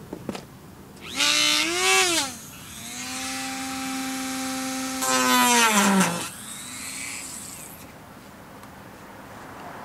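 Handheld power tool cutting through the plastic rear bumper for the exhaust cutout. It spins up briefly and winds down, then makes a longer steady run that grows louder and harsher for about a second before winding down.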